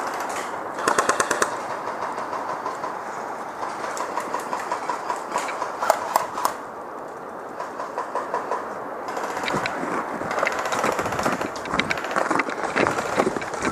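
Airsoft electric rifles firing short full-auto bursts: a quick rattle of rapid, evenly spaced shots about a second in, more scattered shots and brief bursts a few seconds later, and busier, irregular shooting and rustling toward the end.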